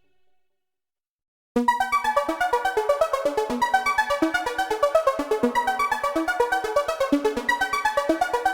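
Background electronic music on a synthesizer keyboard: a fast, even run of short notes. It starts suddenly after about a second and a half of silence.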